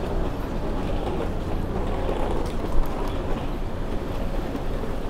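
Outdoor street ambience heard while walking: a steady low rumble of background noise, with a brief knock about three seconds in.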